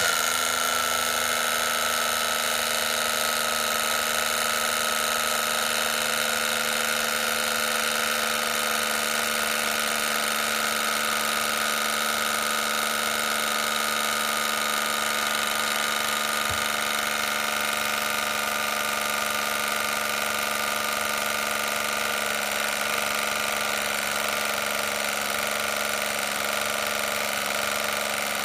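Cheap 12-volt electric oil extractor pump, run from the car battery, pumping oil under pressure through a new LS V8 to prime its oiling system before first start. It makes a steady electric hum and whine at one pitch.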